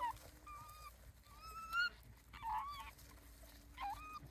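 Japanese raccoon dog (tanuki) pups giving short, high whining calls, about five in a row, some rising in pitch.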